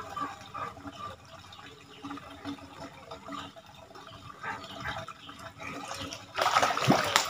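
A sudden loud splash about six and a half seconds in, as a hooked African catfish (lele dumbo) thrashes at the pond's surface on the strike. Before it there is only low background sound.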